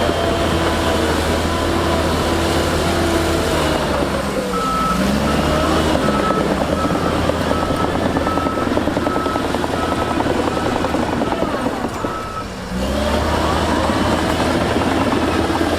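Heavy diesel earthmoving machinery running steadily. A reversing alarm beeps evenly, about once a second, from about four seconds in to about three seconds before the end, and the engine pitch falls and rises as it works.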